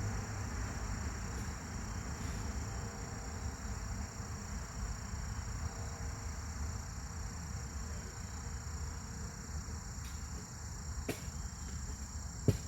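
Insects, like crickets, chirring in a steady high-pitched drone over a low rumble, with a couple of sharp clicks near the end.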